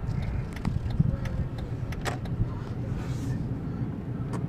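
Inside a car driving slowly on a wet, water-covered street: a low rumble of engine and tyres, with scattered sharp clicks.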